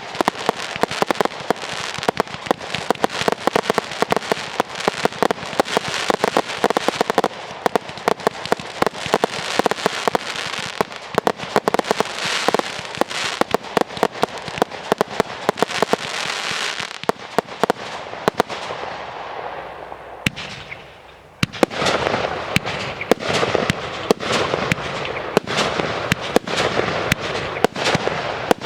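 Fireworks display: a dense, continuous run of bangs and crackling shells. It dies away about two-thirds of the way through, then a fresh salvo of reports and crackle starts up.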